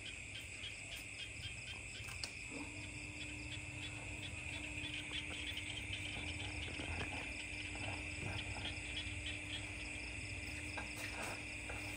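Steady night chorus of crickets trilling, with a low steady hum that joins about two and a half seconds in.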